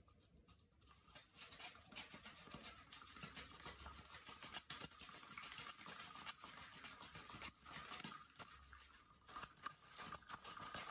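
Faint, dense scratching with many small clicks, starting about a second in and easing briefly before picking up again near the end.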